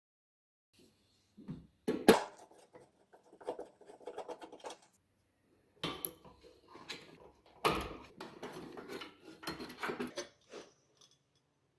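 Hard metal and plastic parts being handled and set down: a few sharp knocks with clattering and scraping between them, typical of taking apart a microwave oven on a workbench.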